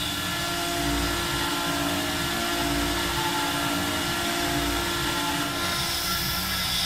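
A power tool or machine tool running steadily, with several steady pitched tones over a wavering low hum.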